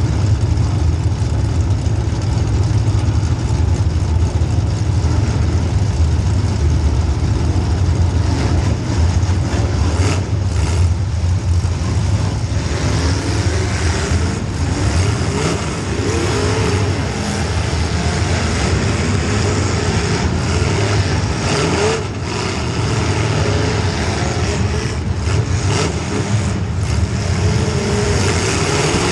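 Demolition derby car's small-block Chevy V8 running hard, its revs rising and falling in the second half. Several sharp crashes of car-to-car hits cut through.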